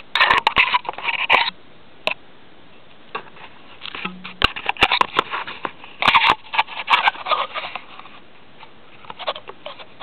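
Bursts of rustling and crackling with sharp clicks, in two spells: the first second and a half, then again from about four to eight seconds in.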